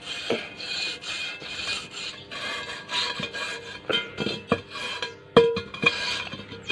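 Steel wheel rim being hand-sanded with metal sandpaper and water, in irregular rasping strokes that scrub rust scale off the bead seat so a tubeless tyre can seal. A single ringing metallic knock comes about five seconds in.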